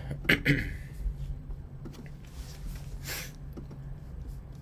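Computer mouse clicking on a web page button: two sharp clicks shortly after the start, then fainter ticks near the end. A short sniff about three seconds in, over a low steady hum.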